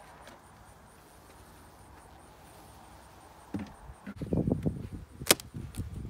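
Wooden beehive parts being knocked and scraped as the hive is opened. A run of low knocks starts about three and a half seconds in, with one sharp click about five seconds in.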